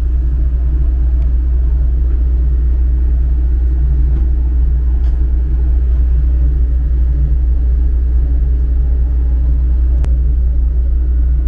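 Steady low drone of a ship's engines and machinery, with a faint click about ten seconds in.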